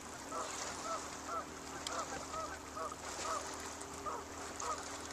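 Geese honking over and over, about two calls a second, over a steady background hiss.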